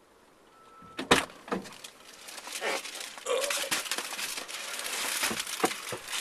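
A sharp knock about a second in, then steady rustling and crinkling as someone gets back into the car and handles their things.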